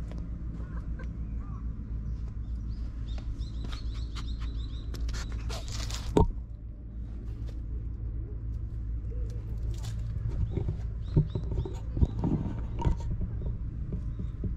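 Outdoor ambience: a steady low rumble with small birds chirping a few seconds in. A sharp knock comes about six seconds in, and a few softer knocks and clicks follow later.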